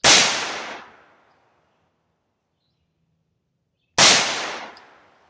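Two rifle shots from a 300 Blackout, about four seconds apart, each followed by a short echo that dies away within about a second. The rounds are handloads set off by small pistol primers, which the shooter judges give too weak an ignition.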